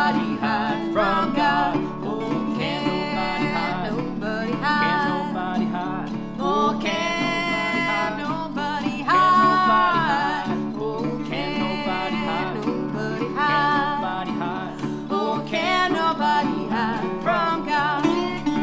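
A woman and a man singing a country duet over two acoustic guitars, with long held vocal notes near the middle.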